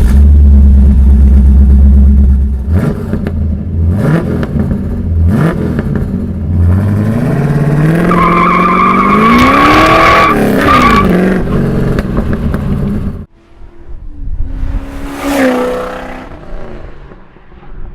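Muscle car engine breathing through a Pypes 2.5-inch Crossflow dual exhaust with X-pipe and Race Pro straight-through muffler. It idles deep and steady for about three seconds, then takes a few quick throttle blips and a long rev that climbs and falls back. After a cut there is a shorter second clip with another rev.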